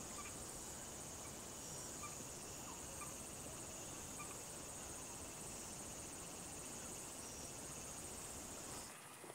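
Steady outdoor ambience of insects chirring in a continuous high-pitched band over a low even hum of field noise. Near the end the low background drops away, leaving a thinner ambience with a few faint clicks.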